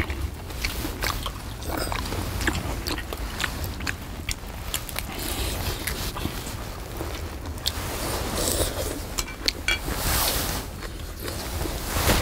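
Close-miked eating of seafood stew: chewing and smacking with many short crunchy clicks scattered throughout, over a steady low rumble.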